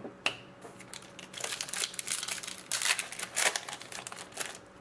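Crinkling of a foil trading-card pack wrapper as it is handled and torn open, with a couple of sharp clicks at the start and then a dense crackle for about three seconds.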